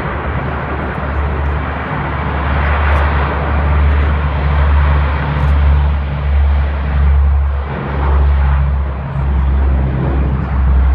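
Lockheed C-130 Hercules four-engine turboprop transport flying, a loud, steady deep drone that swells and dips about once a second.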